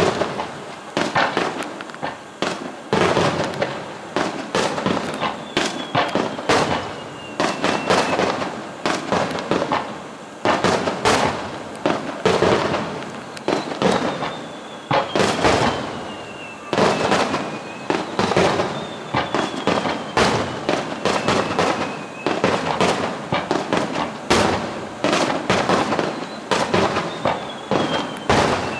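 Fireworks display: a rapid, continuous run of aerial shell bursts and crackling bangs, with several long whistles falling in pitch among them.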